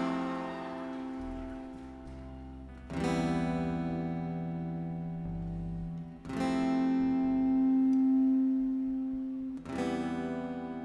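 Acoustic guitar strumming slow chords, a new chord struck about every three seconds and left to ring, with low bass notes changing underneath.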